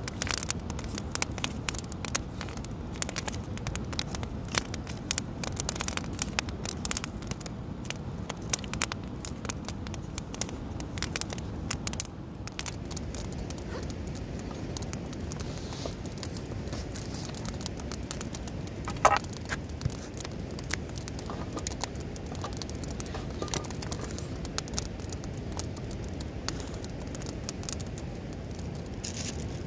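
Wood campfire crackling and popping, the pops frequent in the first half and sparser later, over the steady rush of a waterfall. One sharp knock with a brief ring about two-thirds of the way through.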